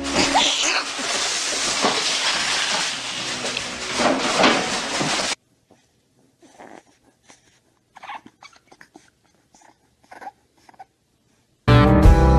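About five seconds of loud, dense noise, then a long near-quiet stretch with faint, short, scattered sounds from a puppy. Slide-guitar music starts near the end.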